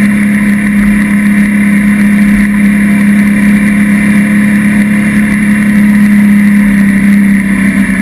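A loud, steady motor drone with a strong constant hum.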